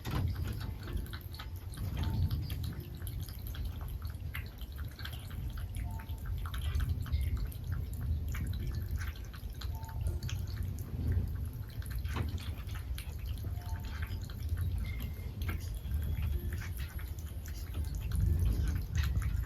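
A cat lapping water with its tongue: a quick, steady run of small wet laps and drips, over a low background rumble.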